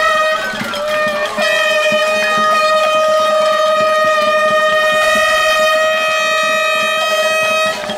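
A horn blowing one long, steady note, held for about six seconds after a brief break near the start, with faint clatter underneath.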